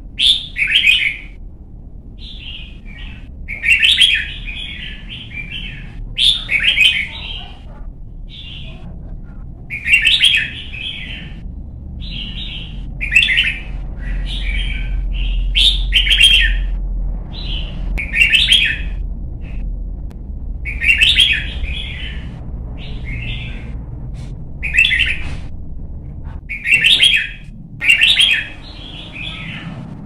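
Red-whiskered bulbul singing a long series of short, loud phrases, one every second or two, over a steady low rumble.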